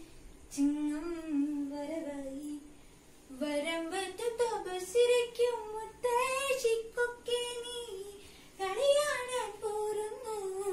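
A single female voice singing a slow melody unaccompanied, holding long notes that slide between pitches, with short breaks between phrases.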